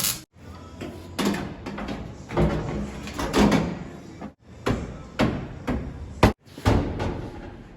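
A series of loud bangs and clattering knocks, about nine in all, each dying away quickly.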